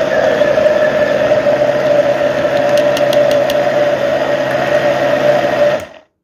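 Countertop blender motor running steadily, loud, blending a thick cauliflower-and-olive-oil purée, with a few light clicks about three seconds in. It switches off and spins down about six seconds in.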